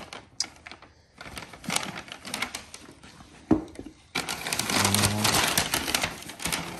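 Kraft packing paper rustling and crinkling as it is handled around a boot in a cardboard shoebox, with a sharp knock about three and a half seconds in and louder, continuous crinkling over the last few seconds.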